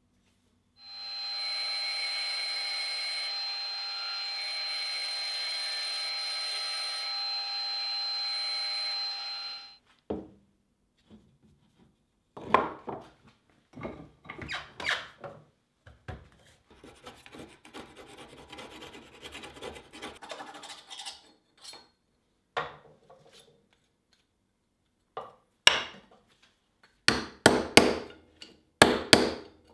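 A wood lathe runs with a steady whine for about nine seconds, then cuts off. Irregular scraping and rubbing of wood being handled and worked by hand follows. Near the end come a series of sharp hammer blows: a ball-peen hammer striking a chisel held on a wooden block.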